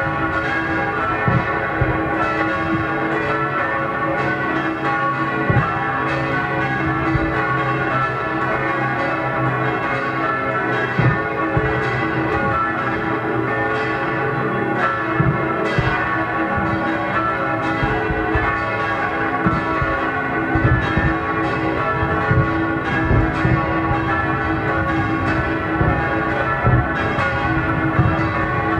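Church bells pealing without a break, with scattered firework bangs and pops throughout.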